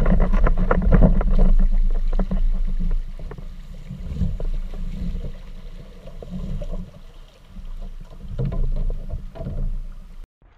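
Water rushing and splashing against a Jackson Kayak Coosa HD fishing kayak's hull as it is paddled through a shallow riffle, with quick knocks and splashes from the paddle strokes. It is loudest in the first few seconds, eases off, swells again near the end and then stops abruptly.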